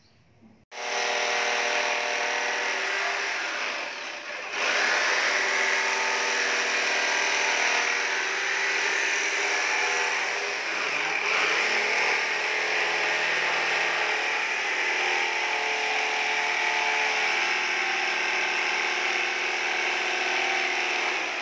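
Corded electric jigsaw cutting through a wooden board, its motor running steadily as the blade saws. It starts about a second in, dips briefly about four seconds in, and winds down at the very end.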